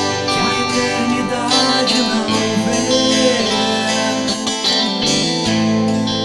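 A band's recorded song playing, led by guitars with strummed and plucked parts.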